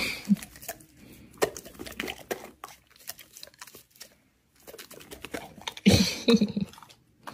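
Golden retriever chewing a hand-fed dog treat: a run of short, irregular crunches and mouth clicks, with a louder sound about six seconds in.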